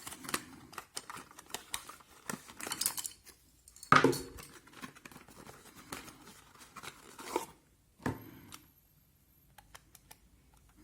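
Unpacking and handling an alarm kit's parts: packaging rustling and crinkling, with scattered small clicks and one sharper click about four seconds in, then near silence for a couple of seconds near the end.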